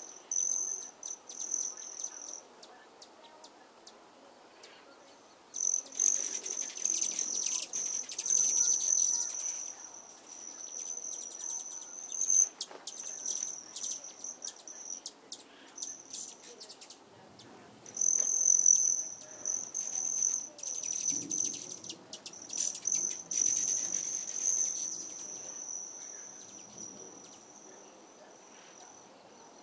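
An insect buzzing on one high, steady pitch in stretches of several seconds, with short breaks between them.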